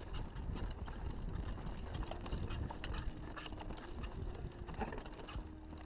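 Mountain bike rolling fast down a dirt forest trail: a steady low rumble with frequent rattles and clicks from the bike.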